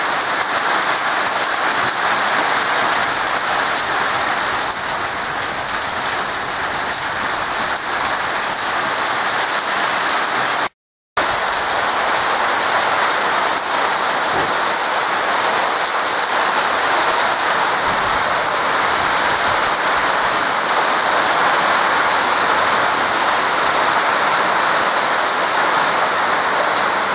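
Small pea-sized hail falling heavily, a dense steady hiss of hailstones pattering on surfaces. It cuts out for a split second about eleven seconds in.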